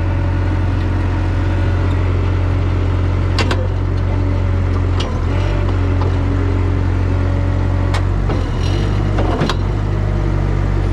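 Toyota 2SDK8 skid steer's diesel engine running steadily at raised throttle while its auxiliary hydraulics feed the backhoe attachment. The engine note sags briefly about halfway through and again near the end, and there are a few sharp clicks.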